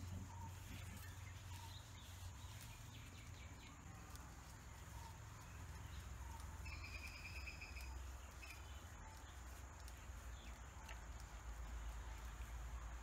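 Quiet rural ambience of birds calling, with one short rapid trilled call about seven seconds in, over a faint steady low rumble.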